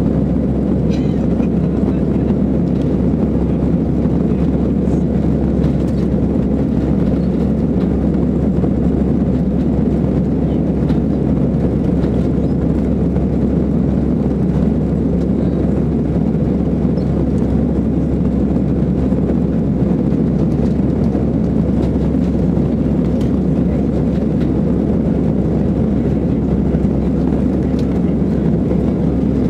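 Airbus A319 cabin noise in the climb after takeoff: the engines and the airflow over the fuselage make a steady low rumble, heard from a window seat over the wing.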